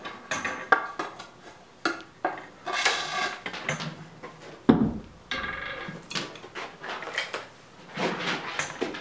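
Steel pliers clinking and scraping as they grip an insulated wire and pull it through a sharpened nail set in a wooden block, the nail scoring the insulation. A series of short metallic clicks, some with a brief ringing, and a heavier thump about five seconds in.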